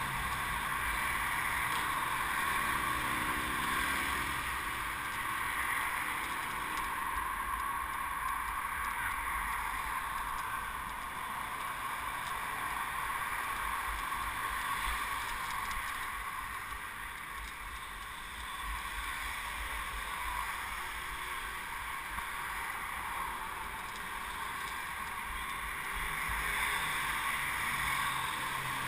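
Wind and road noise picked up by a camera on a moving bicycle: a steady rush with irregular low buffeting of the microphone.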